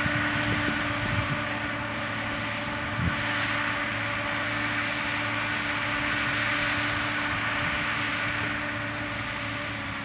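Hidromek MG 330 motor grader's diesel engine running steadily under light load while it grades soil, with a few faint knocks in the first three seconds.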